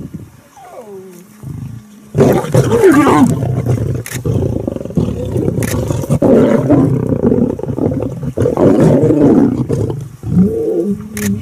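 Several lions growling and snarling at one another at close quarters. The sound breaks out loudly about two seconds in and goes on, with short dips, until near the end.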